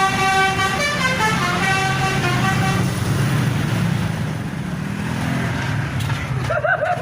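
A bus's Basuri multi-tone 'telolet' horn playing a tune of stepped notes for the first three seconds or so, then the bus engine rumbling low as it goes by.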